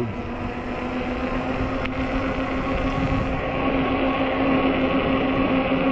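Ecotric 20-inch 48 V fat-tire e-bike riding on pavement: a steady whine from the bike's drive over heavy wind noise on the microphone.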